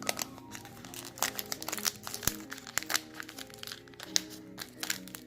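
Crinkling and crackling of a foil trading-card pack wrapper being handled, many short sharp crackles, over music playing in the background.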